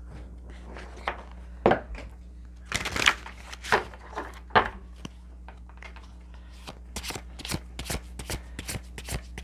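Tarot cards being shuffled and handled: scattered slaps and short rustles, then from about seven seconds in a quick run of card clicks, three or four a second. A steady low hum lies underneath.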